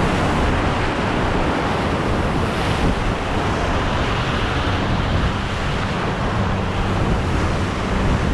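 Ocean surf breaking and washing over jetty rocks in a steady, loud rush, with wind buffeting the microphone.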